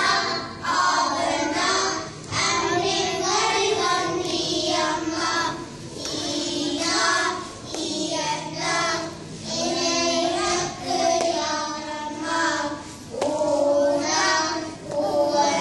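A group of young children singing a song together, in short phrases with brief pauses between them.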